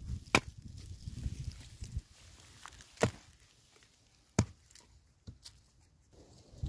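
Wood being chopped: three sharp strikes near the start, about three seconds in and just past four seconds, with a couple of lighter knocks after them.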